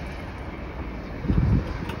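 Low steady rumble of a freight train that has just passed the crossing, with a gust of wind buffeting the microphone a little past halfway.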